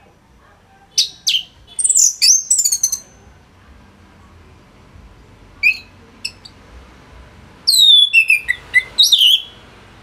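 Orange-headed thrush singing in quick phrases of high whistled slurs and trills: a burst about a second in, a few short notes midway, and another burst near the end.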